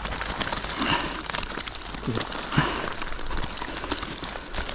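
Close rustling and crackling: many small clicks and crinkles right at the microphone, like handling of rain-wet clothing or gear.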